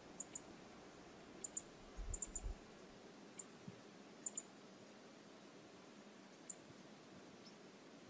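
Faint, steady rushing of river water, with about a dozen short, sharp, high-pitched clicks scattered mostly through the first half and a few low thumps a little after two seconds in.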